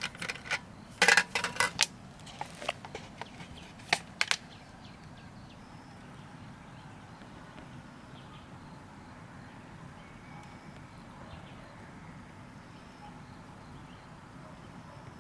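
A quick run of sharp clicks and clattering knocks in the first few seconds, the loudest a little after a second in, then only a faint steady background.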